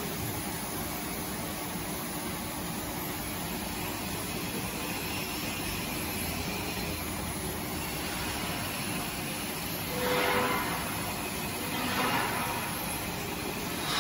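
A JX-3 high shear mixer's head is raised out of a stainless pot of liquid by its lifting system, with a steady mechanical hum and hiss. Near the end come three short, louder rushes of noise, about two seconds apart.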